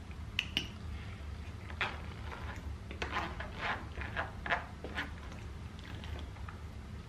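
Eating sounds close to the microphone: scattered clicks and short wet, rustling noises from chewing and handling food and containers, busiest in the middle, over a steady low hum.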